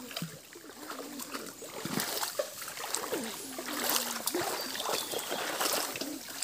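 Shallow stream water sloshing and splashing as several children wade through it and dip nets and bags, with many small irregular splashes.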